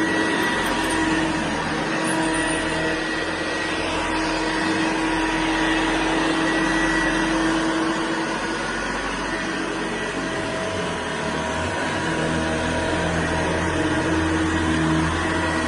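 Hoover Senior 652A upright vacuum cleaner running steadily: a continuous motor whine with several steady tones over the rush of its airflow.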